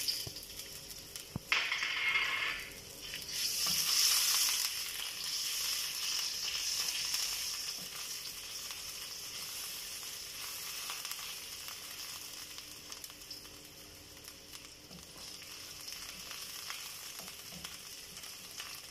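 Ginger frying in hot oil in a pan: a sharp click about a second and a half in, then a loud surge of sizzling over the next few seconds that settles into a steady, slowly fading sizzle.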